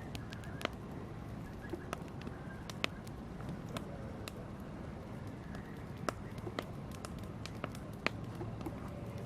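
Wood fire burning, with a steady low rumble of flames and irregular sharp crackles and pops from the burning wood, a few louder snaps standing out.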